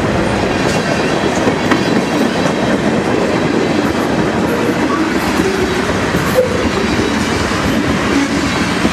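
A Huron & Eastern freight train rolling past, a steady, loud rumble of cars on the rails.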